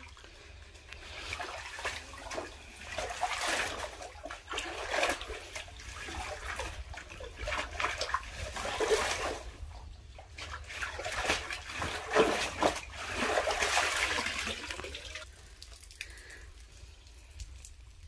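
Water sloshing and splashing as a white cloth is swished and rinsed by hand in shallow water, in irregular bursts that die away about fifteen seconds in.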